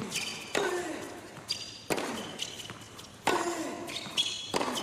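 Tennis rally on an indoor hard court: four racket hits about 1.3 seconds apart, with ball bounces and short high shoe squeaks on the court between shots.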